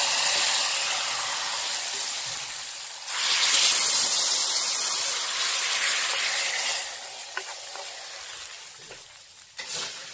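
Hot ghee tempering of mustard seeds, fenugreek, dried red chillies and curry leaves sizzling as it is poured into a yogurt curry. The sizzle surges louder about three seconds in, as curry is ladled into the hot tempering pan, then gradually dies away, with a few light clicks of the utensils near the end.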